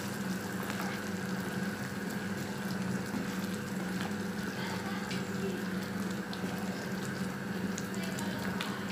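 Thick chicken-and-cashew curry gravy bubbling at a boil in a pan, with scattered small pops, over a steady low hum.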